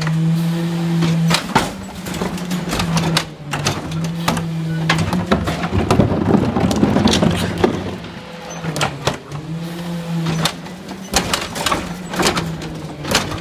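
Rear-loading garbage truck's cart lifter tipping wheeled plastic trash carts into the hopper: a steady mechanical hum that switches on and off several times, with repeated bangs and clatter of the carts against the lifter and tailgate, and a rush of trash falling in about six seconds in.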